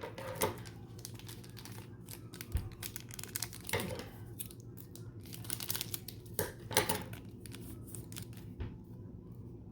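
Trading card pack wrapper being torn open and crinkled, with the cards inside handled: a run of short crackles and rustles, with a few louder ones.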